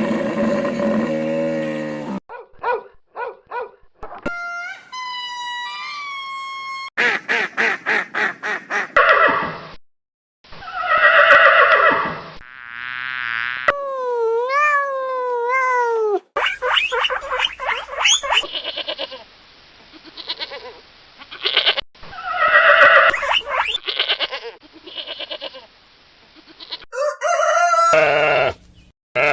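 A run of different farm animal calls and cries cut one after another, each lasting a second or a few seconds, some repeated rapidly and some sliding up and down in pitch, including goat-like bleats and fowl calls.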